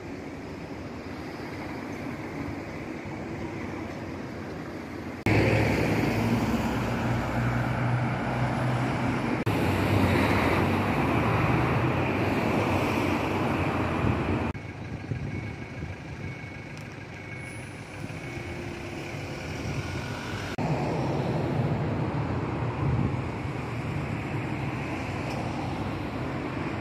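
Road traffic noise: a steady hum of passing cars and trucks, jumping abruptly up and down in loudness several times, louder through the middle stretch.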